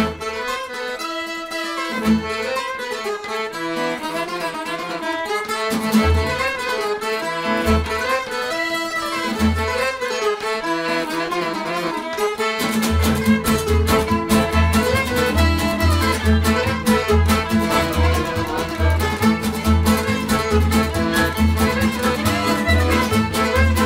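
Background music. About 13 seconds in it picks up a steady, faster beat with a pulsing bass.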